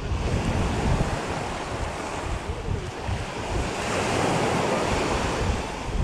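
Small surf breaking and washing up the sand at the water's edge, the wash swelling about four seconds in, with wind buffeting the microphone.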